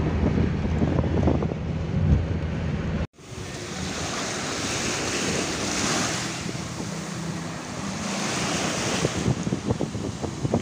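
Road noise inside a moving car for about three seconds. Then, after a sudden cut, small waves wash up on a sand beach and run back, with wind on the microphone.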